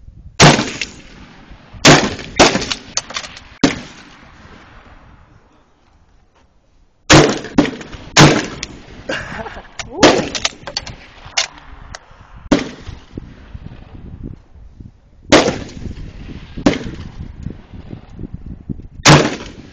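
Gunshots from rifles at a shooting range: single loud, ringing shots every one to four seconds, with quicker, quieter shots between them and a lull of about three seconds near the start.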